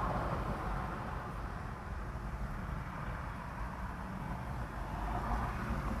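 Steady low rumble with a faint hiss of background noise, with no distinct event.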